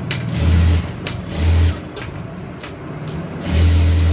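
Electric sewing machine running in short starts and stops: two brief runs in the first two seconds, then a longer steady run near the end, as it topstitches a second row of stitches over a blouse seam.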